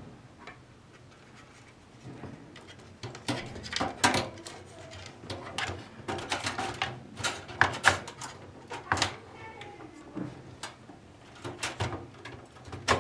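Irregular clicks, knocks and light clatter of computer hardware being handled, as a graphics card and its cooler are put back together and fitted.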